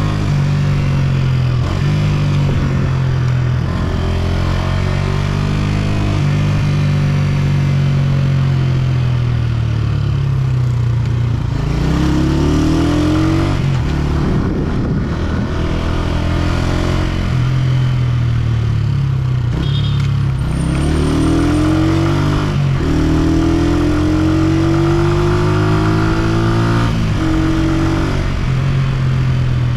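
Honda CG125's single-cylinder four-stroke engine running under way, its pitch rising and then dropping again and again as the bike accelerates and shifts up through the gears.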